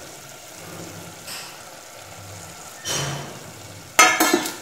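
Masala powders being tipped into an aluminium pressure cooker of frying liver over a low sizzle, with a soft swish about three seconds in and a quick clatter of sharp taps on the pot near the end.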